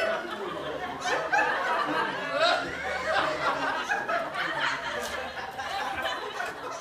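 People laughing and chuckling, with snatches of talk mixed in.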